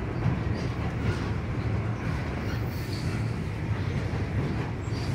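Freight train of tank cars rolling across a steel truss railroad bridge: a steady low rumble.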